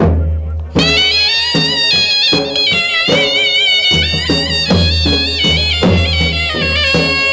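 Gujarati folk raas music: a high, reedy wind-instrument melody with wavering, ornamented notes comes in about a second in, over a steady drum beat of roughly two to three strokes a second and a low sustained bass.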